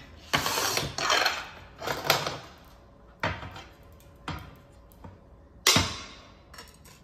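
A glass cutter wheel scoring a sheet of stained glass with a gritty hiss, followed by a few light knocks as the sheet is handled. Just before the end comes the loudest sound, a sharp crack as the glass snaps in two along the score.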